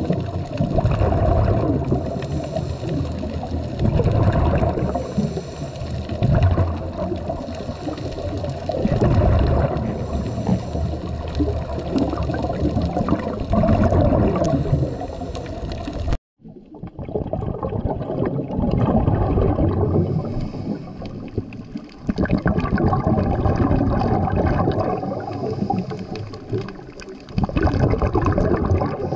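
Muffled underwater bubbling and gurgling from scuba divers' regulator exhalations, swelling every couple of seconds. The sound cuts out for an instant about halfway through, then the same muffled underwater noise carries on.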